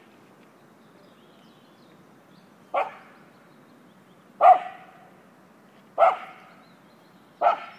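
A dog barking four single, sharp barks about a second and a half apart, starting about three seconds in.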